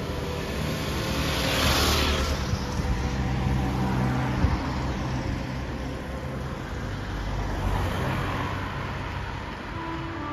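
Motorcycle riding past close by, its engine and tyre noise loudest about two seconds in and then fading. Another vehicle passes more faintly near the end.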